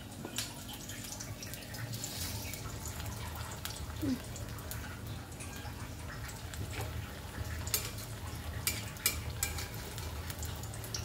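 Besan-battered pumpkin slices being coated and then frying in hot oil in a kadhai, the oil sizzling with sharp crackles that come thicker in the second half. A steady low rumble runs underneath.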